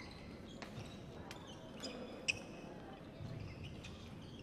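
Badminton play on a wooden court in a large hall: several sharp clicks of rackets striking the shuttlecock, with short high shoe squeaks on the floor. The loudest hit comes a little past two seconds in.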